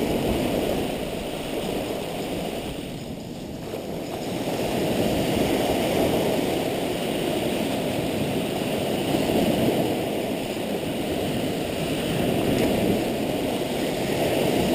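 Sea surf washing onto the beach: a steady rushing that swells and eases, with a lull about three seconds in.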